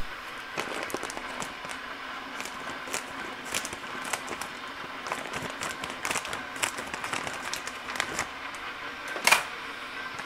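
Plastic bag of dry malt extract crinkling as it is handled and snipped open with scissors: many small crackles and clicks, with a louder crinkle about nine seconds in, over a faint steady hum.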